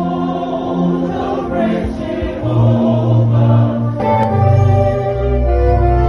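Choir singing worship music in long held chords, the notes changing every second or two over a deep bass.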